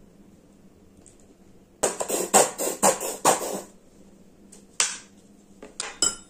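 Plastic squeeze bottle of ketchup spluttering in a quick run of about six loud bursts as sauce is forced out over a bowl, followed by a few single sharp knocks.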